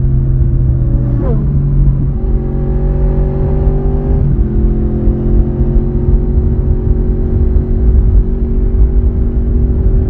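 Honda VFR750's V4 engine and exhaust pulling along at riding speed, heard from on the bike. The engine's pitch jumps briefly a little over a second in and changes again around four seconds in, then holds steady and slowly climbs, over a low wind rumble.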